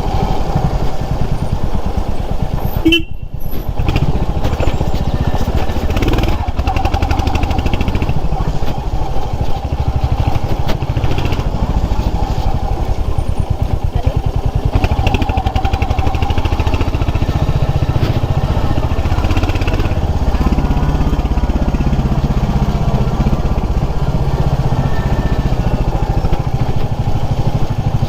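Motorcycle engine running steadily as the bike is ridden, with a brief dip in the sound about three seconds in.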